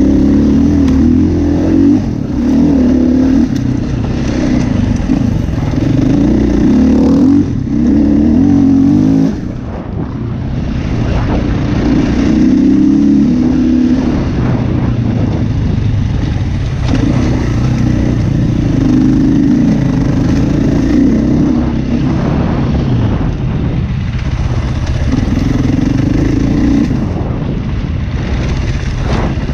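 Enduro motorcycle engine under the rider, repeatedly revving up and easing off while riding a dirt trail. The throttle shuts briefly about a third of the way in, then the engine pulls again.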